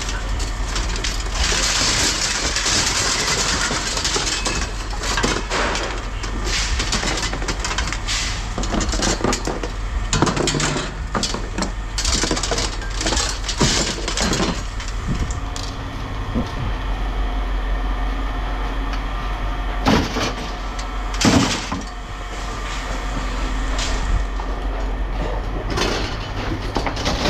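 Scrap metal clattering and knocking as pieces are handled and dropped, over a steady low machine hum. The clatter is dense through the first half, and two sharper metal impacts come about 20 and 21 seconds in.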